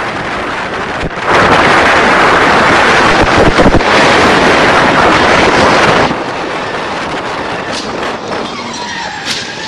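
Road noise of a car driving at speed, with heavy wind noise on the microphone that turns much louder for about five seconds before dropping back.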